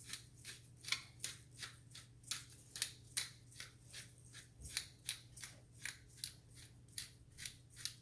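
Pepper grinder being twisted to crack black pepper: short gritty scrapes, about three a second, kept up steadily.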